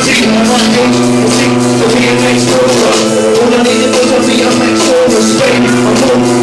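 Loud music: held chords over a steady high percussion beat, with a deeper chord coming in just under a second in.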